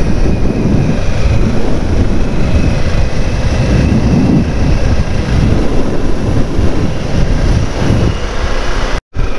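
Harley-Davidson Pan America's V-twin engine running at a steady cruise, mixed with road and wind noise from the moving bike. The sound cuts out for a moment near the end.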